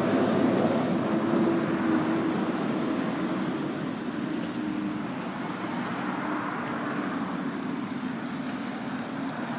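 Motor vehicle and road traffic noise, a steady rumble that slowly fades away.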